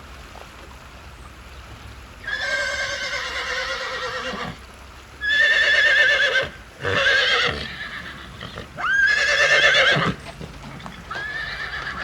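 A horse whinnying five times, each call a high, shaky, wavering neigh, the first and fourth the longest.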